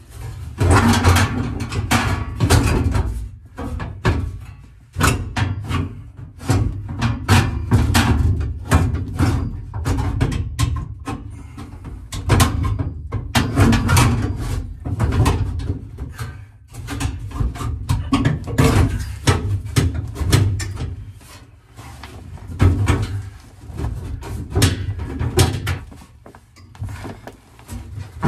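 Sheet-metal package tray being worked by hand into a 1969 Mustang fastback around a roll bar: irregular scraping, rattling and clunking of metal against the car body and roll bar tubes.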